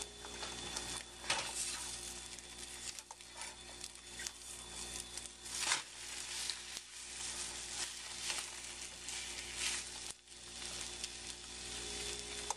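An egg omelette with ham and pizza toppings frying in a nonstick pan on an electric stove, a steady sizzle, broken a few times by sharp scrapes and taps of a spatula against the pan as the omelette is turned and folded over.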